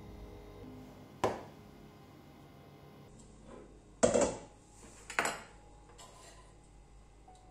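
Tableware clinking and knocking: three sharp clinks, about a second in, at about four seconds (the loudest, with a short ring) and just after five seconds, with a few faint taps between.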